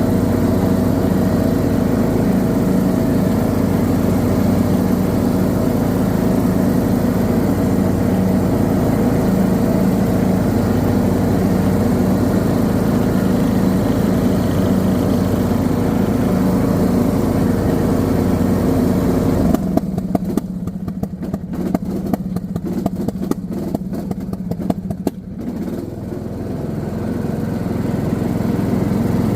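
Briggs & Stratton 19 hp engine of a John Deere D110 lawn tractor running steadily, then about two-thirds of the way in it suddenly stumbles and sputters unevenly for several seconds before picking back up to a steady run. This is the surging and misfiring under load that the owner is showing.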